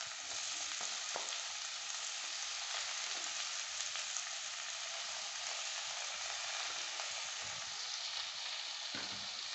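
Freshly added chopped onions and cumin seeds sizzling in hot oil in a stainless steel kadai: a steady frying hiss.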